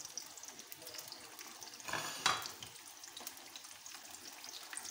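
Freshly chopped onions frying in oil in an aluminium pot: a faint steady sizzle with fine crackles. One brief louder clatter about two seconds in.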